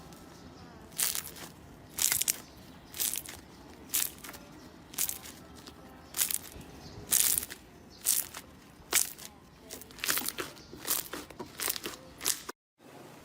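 Slime being squeezed and pressed by hand, in short crackly bursts about once a second that come closer together near the end, then stop abruptly.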